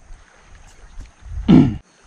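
A short grunt-like human vocal sound about a second and a half in, falling in pitch, over a low rumble. It cuts off abruptly.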